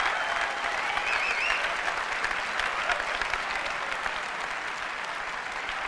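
Large audience applauding steadily, tapering off slightly toward the end.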